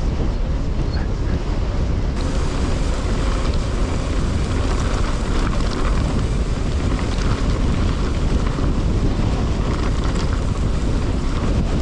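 Strong headwind blasting over the microphone of a mountain biker riding downhill: steady, loud wind noise.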